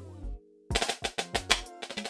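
Mapex marching snare drum played in fast, dense stick strokes over a backing track with a bass line. The sound cuts out briefly about half a second in, then a quick run of strokes resumes.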